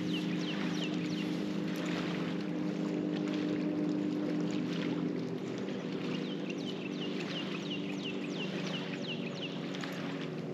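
A steady low motor hum with a light wash of wind and water. Over it a bird gives quick runs of short falling notes, about four a second: briefly at the start and again for about three seconds past the middle.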